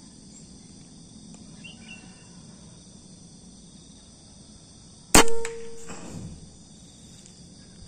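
A single shot from a PCP air rifle firing a slug: one sharp crack with a brief metallic ring, followed under a second later by a fainter low thud.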